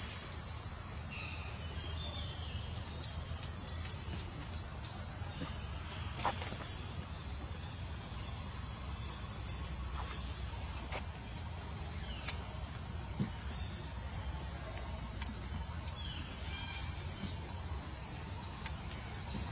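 Outdoor forest ambience: a steady, high-pitched insect drone with a few short bird chirps, one cluster about four seconds in and another about nine seconds in.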